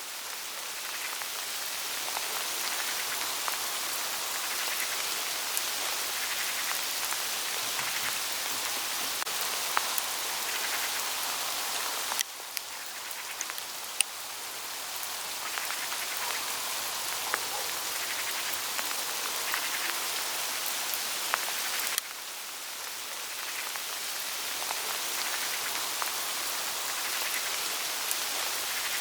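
Small hail pattering on autumn leaves in a forest: a dense, steady rustling patter scattered with sharp little ticks of individual hailstones. The level drops suddenly twice, about twelve and twenty-two seconds in, and builds back over a few seconds.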